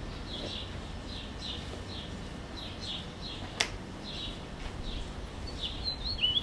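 Birds chirping, a run of short repeated notes over steady outdoor background noise, with a single sharp click about halfway through. A louder warbling song starts near the end.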